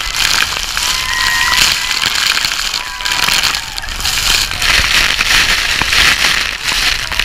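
Waterfall spray and falling water drenching an open tour boat, droplets pelting the microphone as a loud, dense crackling hiss, with passengers' shouts over it.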